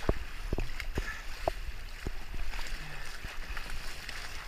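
Choppy water slapping and splashing against the hull and bow of a plastic sit-on-top kayak as it is paddled through swell, with many short splashes over a steady low rumble.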